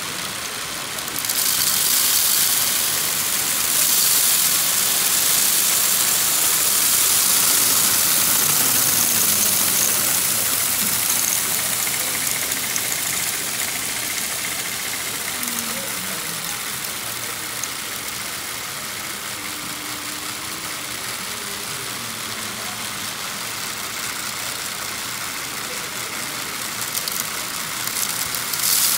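Lego Power Functions motors whirring as they drive a Lego rotary dumper and its conveyor, with the hissing clatter of loose round Lego plates. The clatter is louder for the first ten seconds or so, and a short burst of clatter comes near the end as the dumper tips the car.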